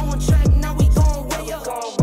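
Background hip-hop music with deep bass drum hits that drop in pitch and a rapped vocal line over a steady bass; the bass cuts out briefly just before the end.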